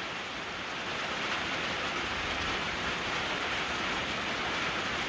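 Steady rain falling, a continuous even hiss that grows slightly louder as the rain picks up.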